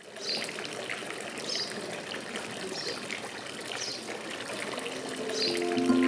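Garden fountain water trickling and splashing steadily, with a short high-pitched sound repeating about every second and a quarter. Sustained music notes come in near the end.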